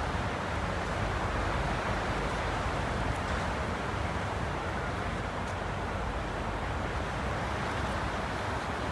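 Steady rushing wind, even throughout with no clear gusts or breaks.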